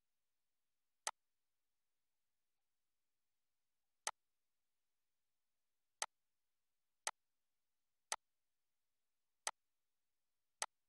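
Computer mouse clicking seven times at irregular intervals, each a single short, sharp click, with near silence between them.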